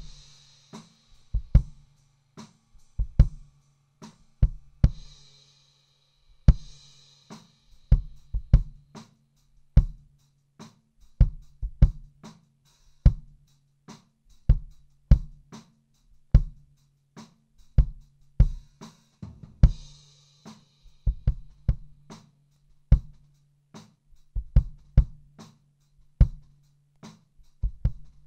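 Recorded kick drum track played back through an Atlas Pro Audio Leviathan opto compressor while its settings and bypass are being adjusted: a repeating pattern of kick hits, about one to two a second with some quick doubles. A faint high hiss comes in a few times.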